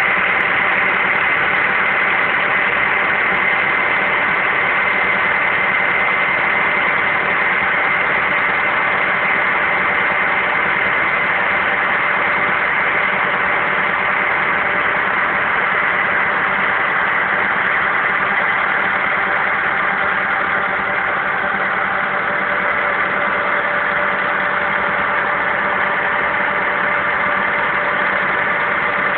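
Farm tractor engine running steadily at a constant idle, with a steady whine over the engine note.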